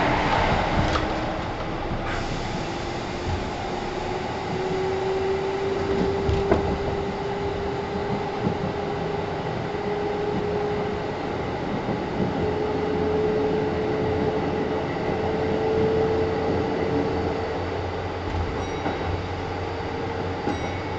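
Kintetsu 1010 series electric train running between stations. A motor whine rises slowly in pitch as the train gathers speed, over a steady rumble of wheels on rail, with a few clacks from rail joints near the start and about six seconds in.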